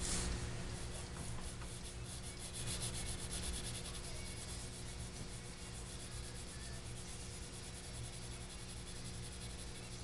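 Pencil scratching on paper in quick, repeated hatching strokes while shading a drawing.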